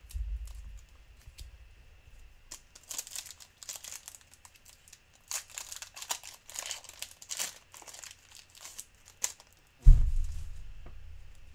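Foil Pokémon booster pack wrapper crinkling and tearing as it is opened, in scattered bursts. A dull low thump at the start and a louder thump near the end, the loudest sound.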